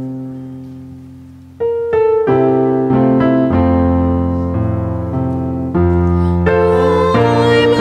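Worship band playing a song's instrumental introduction: piano-keyboard chords with two violins. A chord sounds at the start and fades, then fuller playing comes in about a second and a half in, the chords changing every second or so.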